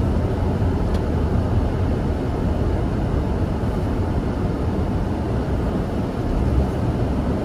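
Steady in-cabin noise of a car driving on a snowy road: engine and tyre rumble mixed with the heater fan blowing at full, which makes the cabin noisy.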